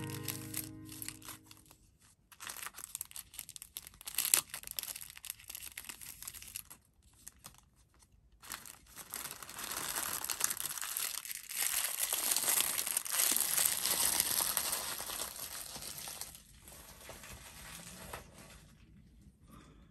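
Crinkling and rustling handling noise with scattered sharp clicks, building to a longer stretch of steady rustling about halfway through, then fading. Acoustic guitar music fades out in the first two seconds.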